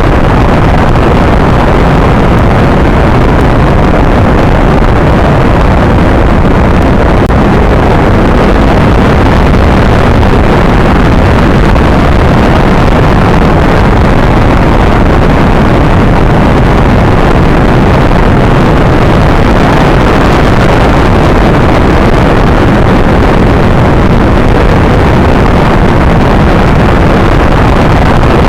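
Rocket engine sound effect: a loud, steady rush of noise, heaviest in the low and middle range, that holds unchanged throughout.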